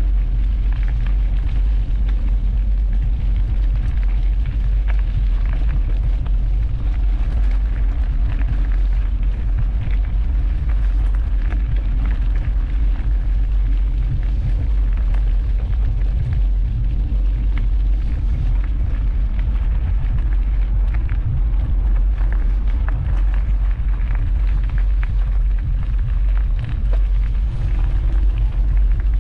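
Wind buffeting the microphone of a GoPro HERO 12 Black on a moving bicycle: a steady, loud low rumble, with scattered small clicks and rattles.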